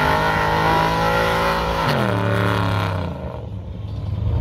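Classic muscle car's engine accelerating hard as the car pulls away. Its pitch drops sharply at a gear change about two seconds in, then the sound fades as the car drives off.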